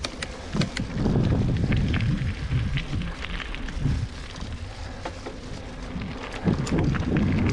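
Wind rumbling on the microphone of a camera riding with a mountain bike, getting louder about a second in, with scattered crackles and clicks from the bike and tyres on a muddy trail.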